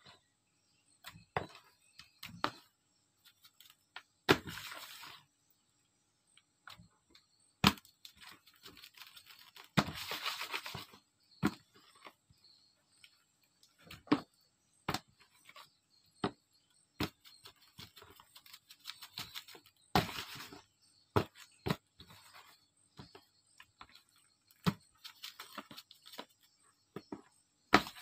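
Raw fish being salted by hand in a plastic basin: irregular wet slaps and taps as the fish are turned and pressed against the basin, with a few short rustling bursts as salt is sprinkled on.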